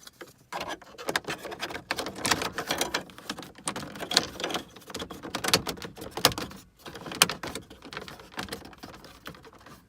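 Plastic dash trim pieces being handled and fitted into place by hand: a busy, irregular run of clicks, taps and rustling.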